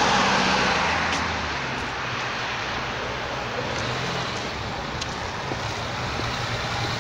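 Road traffic: a van passes close by at the start, the loudest moment, and fades over the first couple of seconds. Then a 1963 Mercedes-Benz 220SE (W111 fintail) straight-six engine runs with a steady low hum as the car drives up slowly.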